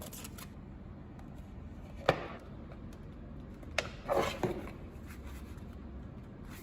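Adhesive foil tape being peeled off a plastic case, with handling of the case. There is a sharp click about two seconds in and another near four seconds, then a brief crackling rustle, over a low steady hum.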